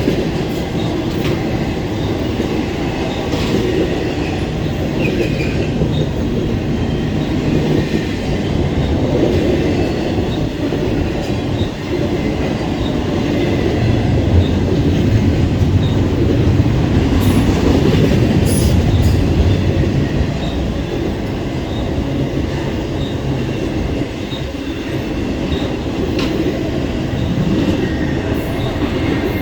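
BNSF double-stack intermodal freight train rolling past: a continuous rumble of steel wheels on rail with scattered clicks, loudest about halfway through.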